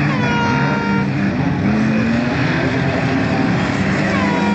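Banger racing cars' engines running around the track, a dense steady noise. Twice, about four seconds apart, a short pitched tone drops quickly and then holds for about a second.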